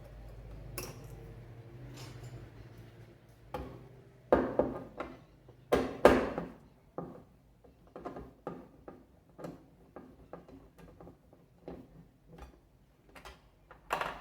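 Metal tools knocking and clinking against the metal parts of a washing machine's transmission as it is taken apart: a cluster of louder knocks about four to six seconds in, then lighter clicks about twice a second, and a sharp knock at the end.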